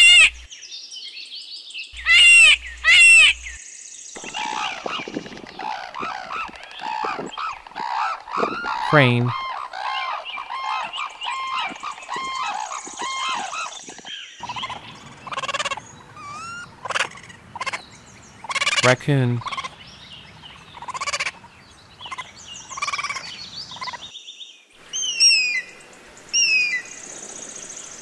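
A string of different animal calls, mostly bird calls, each a short pitched note that arches or sweeps in pitch, changing in kind partway through and again near the end. A voice says the single words "Crane" and "Raccoon" between them.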